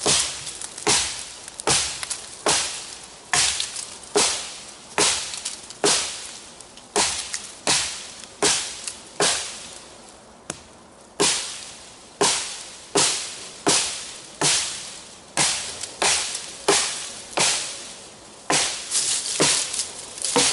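Camillus Carbon V kukri, a heavy 8 mm-thick blade, chopping into a log in a steady run of sharp strikes, a little over one a second, with a brief pause about halfway and quicker strokes near the end.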